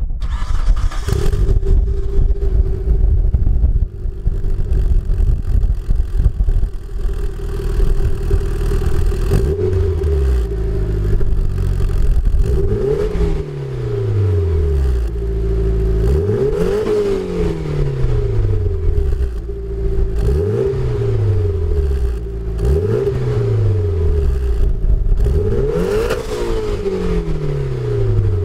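Mitsubishi Lancer Evo VII's turbocharged 2.0-litre 4G63 inline-four heard at the exhaust tip through a Kakimoto Kai Regu06 & R muffler. It idles for about nine seconds, then is blipped about seven times, roughly every three seconds, each rev rising quickly and falling back to idle.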